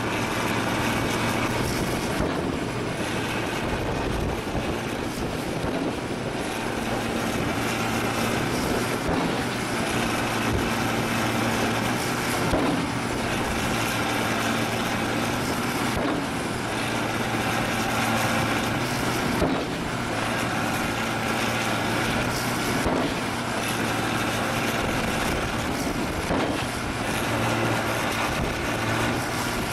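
The engine of a 12,000 lb guillotine pavement breaker running steadily, with a faint thud about every three and a half seconds in the second half as the drop weight strikes the pavement.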